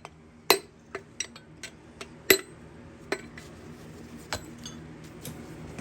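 Hammer taps driving a piston and connecting rod out of the cylinder bore of a 350 small-block Chevy V8 block during teardown. About seven sharp metallic strikes at uneven spacing, the loudest near the start, thinning out after about four seconds.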